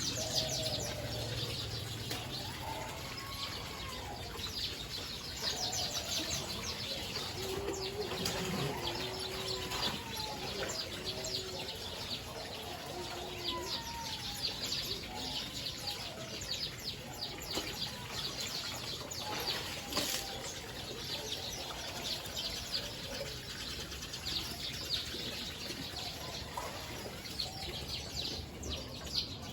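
A large flock of small birds chirping densely and without pause, many calls overlapping. A single sharp click sounds about two-thirds of the way through.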